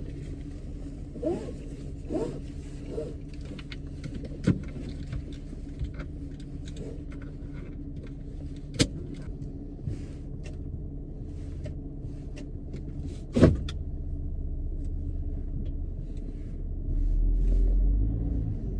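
Car engine running, heard from inside the cabin, with a few sharp clicks and knocks along the way. A louder low rumble comes in near the end.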